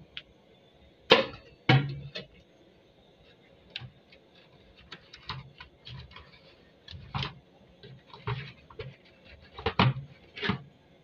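Irregular knocks and light clatter of plastic basins and a metal cup being handled and set down at a stainless-steel kitchen sink, with two sharper knocks a little after a second in and two more near the end.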